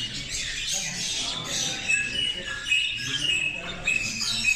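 Many caged small birds chirping and twittering at once, a dense overlapping chatter of short high notes.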